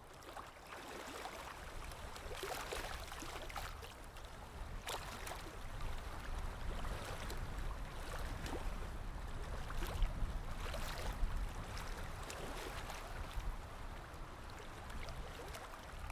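Small waves lapping and splashing against a shore or hull, with a low gusting rumble of wind on the microphone underneath.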